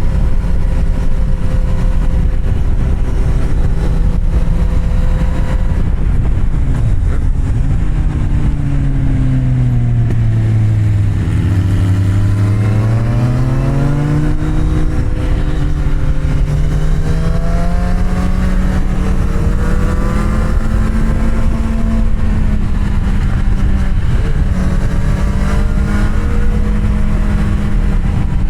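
Kawasaki Z750R's inline-four engine under way. Its note holds steady, drops for a few seconds as the bike slows, then climbs again as it accelerates and settles at a higher pitch.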